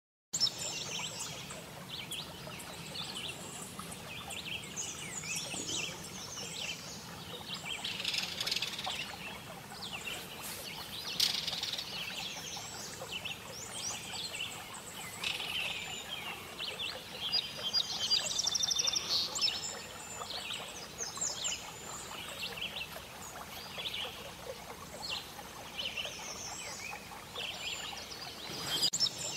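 Several songbirds chirping and singing, with short calls overlapping and a rapid trill partway through, over a steady faint outdoor background. The sound starts abruptly just after the beginning.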